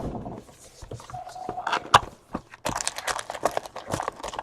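Trading-card pack wrappers crinkling and cards being handled, with sharp snaps and a dense run of crackling in the second half. A short whine is heard about a second in.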